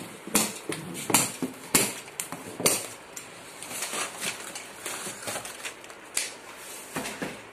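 Plastic packing straps on a cardboard box being cut with scissors, giving a few sharp snaps about a second apart. This is followed by cardboard rustling and scraping as the box lid is lifted off.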